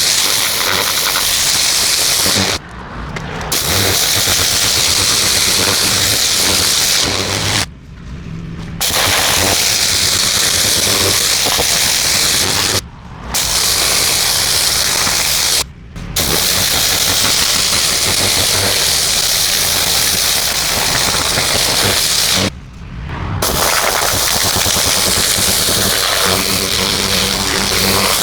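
Pressure washer jet spraying concrete steps: a loud, steady hiss that cuts out briefly five times as the trigger is released, with the machine running underneath throughout.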